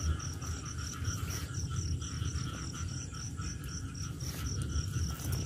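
Insect chirping in a steady, even pulse, about five chirps a second, high-pitched, over a low rumble.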